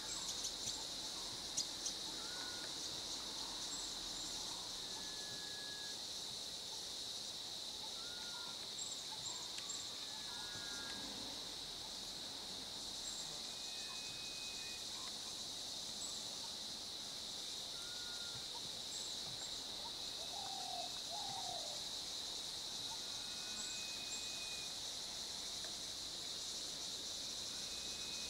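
Steady, high-pitched insect chorus, with short bird whistles and chirps dotted over it throughout.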